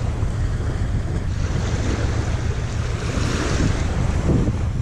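Wind buffeting the microphone in a steady low rumble, over a hiss of waves washing on the shore.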